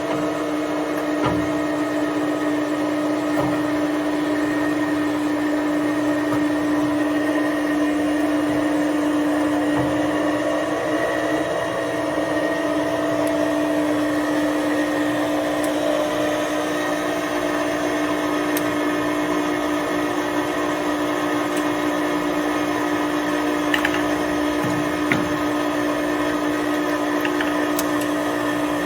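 Warner & Swasey No. 3 turret lathe running under power: its spindle motor and headstock give a steady mechanical hum with one strong constant tone, and a few faint light clicks.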